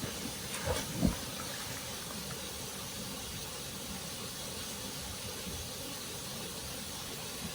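Steady rushing of water, an even hiss with no pauses, with two brief low knocks about a second in.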